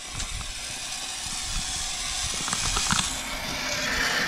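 Water from a garden hose left running, spraying with a steady hiss that grows louder toward the end.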